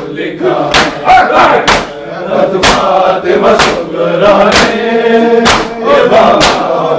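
Group of men beating their chests in matam, the hand strikes landing in unison about once a second, with their voices chanting between the strikes.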